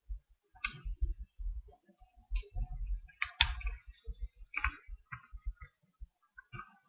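Irregular clicks and light knocks of a Glock 18C airsoft pistol being handled, its plastic parts clicking as it is worked, with a few dull low thuds among them.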